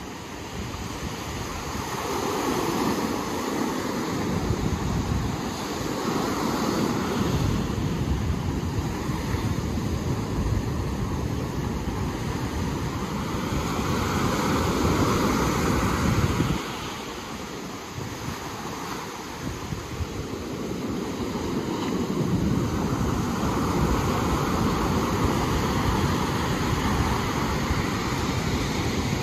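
Ocean surf rushing in and washing back in slow swells several seconds apart, with wind rumbling on the microphone.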